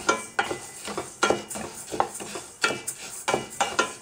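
Wooden spatula stirring split moong dal dry-roasting in a stainless steel pan: scraping strokes across the pan base with the rustle of the dry lentils, irregular, about two or three a second.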